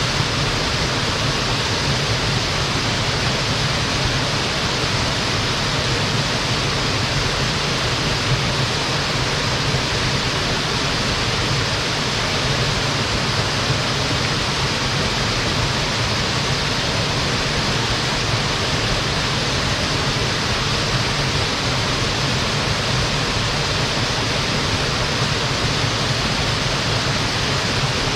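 Mountain-stream waterfall, water falling and splashing in a steady, unbroken rush.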